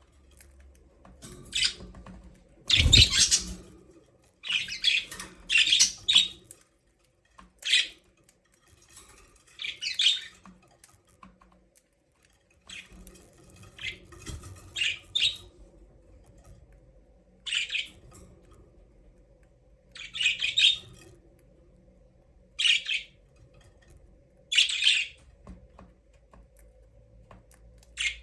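Budgerigars chirping and squawking in short, separate calls every second or two, with one louder call and a low bump about three seconds in.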